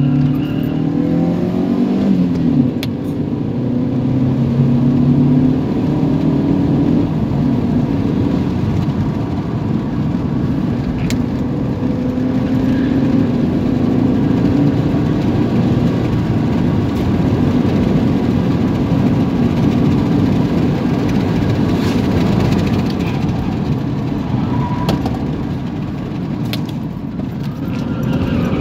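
Car engine and tyre road noise heard from inside the cabin while driving. The engine note rises over the first two seconds, drops back as with a gear change, then holds steady at cruising speed.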